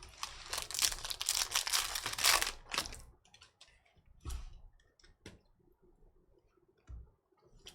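Foil wrapper of a trading-card pack being torn open and crinkled for about three seconds, followed by a few faint light clicks as the cards are handled.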